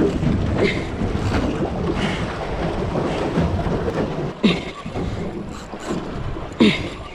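Wind buffeting the microphone over choppy sea water slapping around a small boat's hull. Two short, sharp sounds cut through about four and a half and six and a half seconds in.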